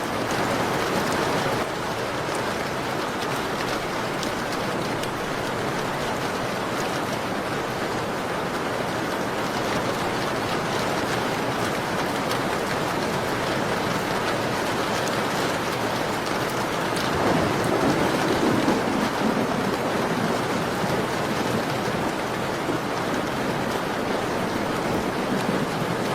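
Steady rain falling on a window, an even continuous hiss, with a louder low swell about two-thirds of the way through.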